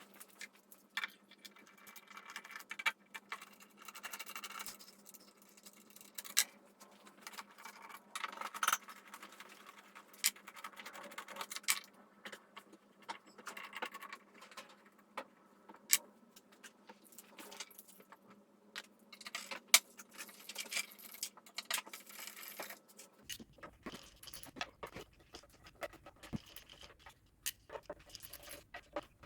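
Small hard objects being handled: irregular clicks, light scrapes and rattles, with a faint steady hum under them until the hum stops about three quarters of the way through.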